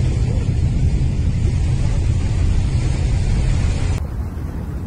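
Steady low rumble and hiss of wind buffeting the microphone. About four seconds in, the hiss drops off abruptly and the rumble carries on more quietly.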